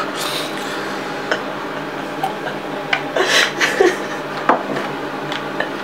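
Scattered light clinks and knocks, as of a glass of milk being handled, over a steady low hum. A short breathy rush comes about three seconds in.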